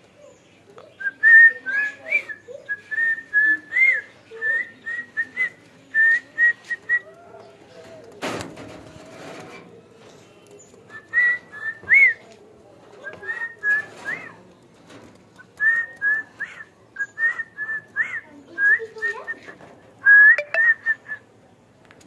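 Cockatiel whistling in phrases of short, quick notes at nearly the same pitch, many ending in a small upward flick. The whistling breaks off in the middle for a few seconds, where there is a single knock.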